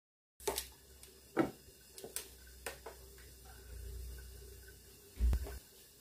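Light clicks and knocks of cookware being handled at a gas stove, with a heavier thump a little after five seconds. A faint steady hum and low rumble run underneath.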